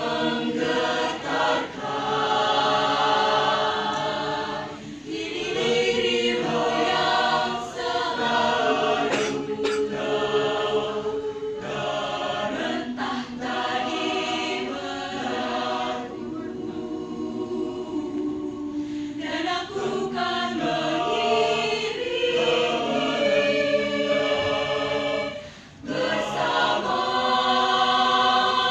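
Mixed choir of women and men singing together under a conductor. The singing softens for a few seconds around the middle, breaks off briefly about three-quarters through, then comes back in full.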